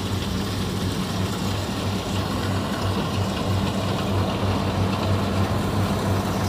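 Kubota DC-60 combine harvester running steadily as it cuts and threshes ripe rice, a low, even machine hum.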